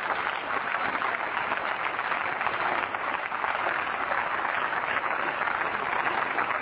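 Many people applauding together: a dense, steady clatter of hand-clapping from a seated chamber of parliamentarians.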